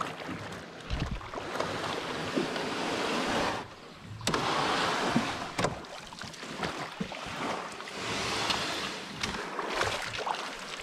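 Small waves washing and lapping on a sandy shore, swelling and ebbing, with a brief lull a little over a third of the way in and a few light knocks.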